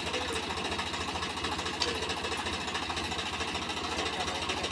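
Farm tractor's diesel engine running steadily at low revs, a fast, even chugging.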